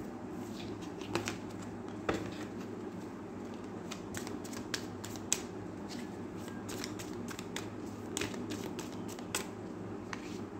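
A deck of tarot cards being shuffled by hand: irregular light clicks and snaps as the cards slide and strike against each other, over a steady low hum.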